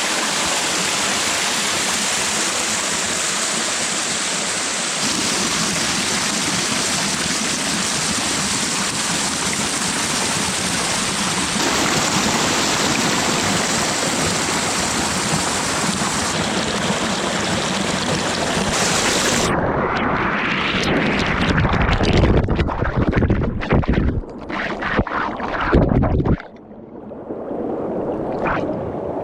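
Rushing river water: a steady, full hiss of fast-flowing water, broken by a few abrupt cuts. About two-thirds of the way through it gives way to several seconds of low, gusty buffeting from wind on the microphone, then quieter rushing water near the end.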